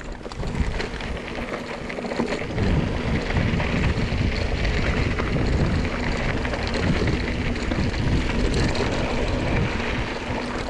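Wind buffeting the camera microphone as a mountain bike rolls fast down a loose gravel trail, tyres crunching over the stones, with many small knocks and rattles from the bike. The noise gets louder a couple of seconds in.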